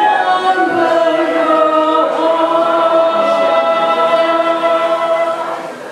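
A small group of singers holding the final notes of a song in harmony, accompanied by flute and acoustic guitar; the chord fades out just before the end.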